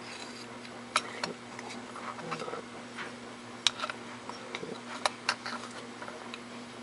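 Small steel parts of a Tokarev TT33 pistol clicking and tapping as they are handled and fitted, with the barrel bushing going onto the slide: a handful of separate sharp clicks, the loudest about a second in and two around five seconds in, over a steady low hum.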